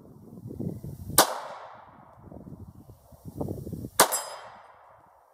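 Two 9mm shots from a Ruger Security 9 pistol, about three seconds apart. The second is followed by a brief high ring, typical of a bullet striking a steel target plate.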